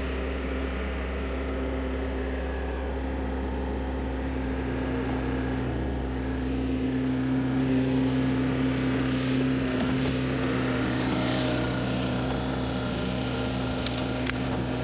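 Neuson 6003 excavator's diesel engine running steadily, its note changing about halfway through, with a few faint clicks near the end.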